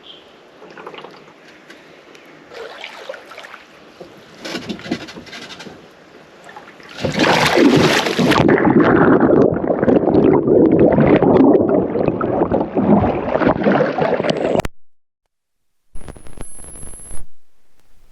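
A kayak capsizing in a creek: light scraping and water sounds, then about seven seconds in a sudden loud splash and several seconds of churning water that cut off abruptly.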